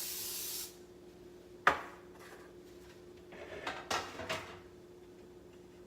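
A short hiss of cooking-oil spray on the pan, cutting off just under a second in. It is followed by a sharp knock about two seconds in, the loudest sound here, and then some light clattering of kitchenware being handled.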